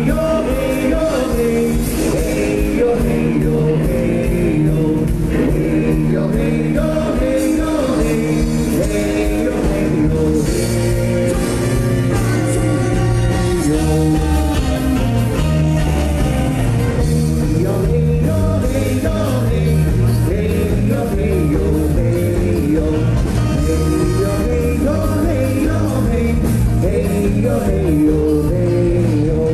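Live band playing a song, with men singing into microphones over electric guitar and bass guitar.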